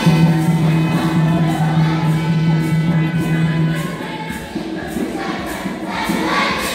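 Children's choir singing a hymn, with a low note held steady for about the first four seconds before the voices move on.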